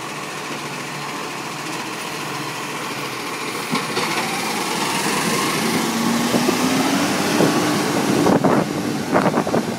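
Side-loading garbage truck's diesel engine running, then pulling away with the engine pitch rising and a faint whine climbing alongside it. Clattering knocks near the end.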